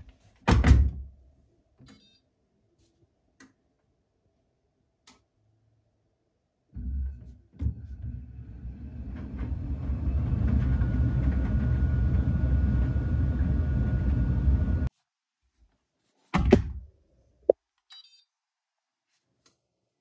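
A laundry machine's drum starting to turn with a load of clothes tumbling inside: a low rumble builds over a couple of seconds, runs steadily with a faint thin whine above it, then cuts off suddenly. A heavy thud, like the machine door being shut, comes before it, and another thud comes after it.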